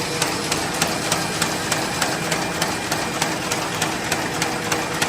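Fully automatic paper bag machine running at high production speed: a steady mechanical whir with a sharp rhythmic click about three times a second, one click per machine cycle.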